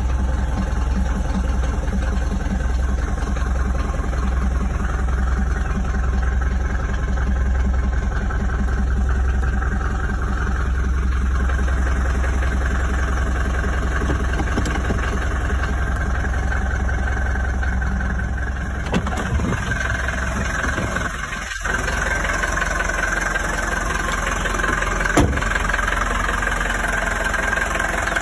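Mercedes-Benz W123 200D's four-cylinder diesel engine running steadily, heard from inside the cabin. After a short break about three-quarters of the way in, it is heard from outside by the front of the car.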